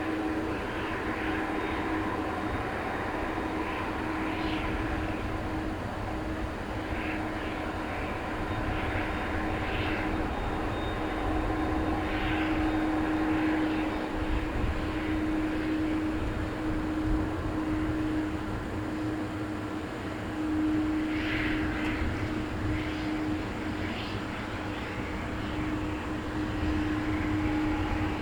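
Airbus A340 jet engines running steadily during landing, a continuous rushing noise with one held humming tone.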